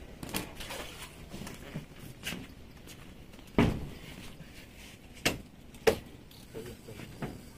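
A handful of separate short knocks and thumps. The loudest comes about three and a half seconds in, and two more sharp ones follow a little after five and six seconds.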